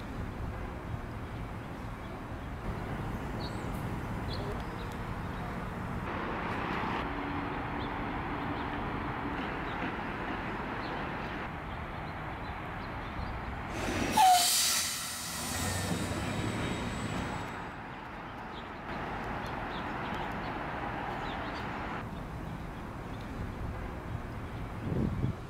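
Outdoor city ambience: a steady background rumble and hiss that changes at each cut between shots, with a brief louder rush about halfway through.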